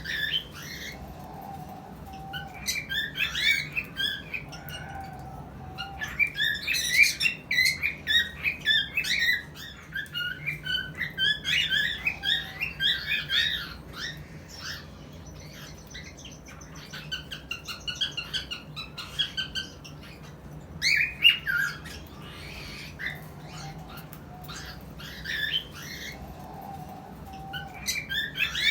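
Cockatiels chirping and squawking in rapid strings of short notes, in bouts broken by pauses: the breeding or mating call of a cockatiel pair.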